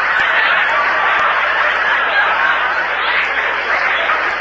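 Studio audience laughing, a long steady wave of loud laughter, heard on an old radio broadcast recording.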